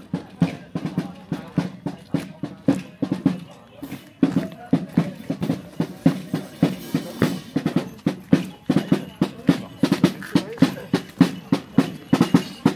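Parade band drums beating a quick, steady rhythm of about four strokes a second, with bass and snare drum.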